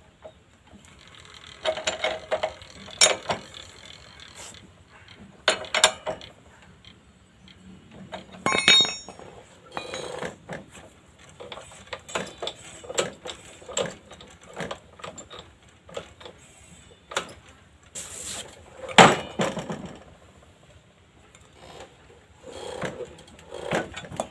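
Hand tools on a motorcycle's front axle and fork leg: a steel spanner and metal parts clinking and knocking at irregular intervals, with the loudest clatter about 19 seconds in.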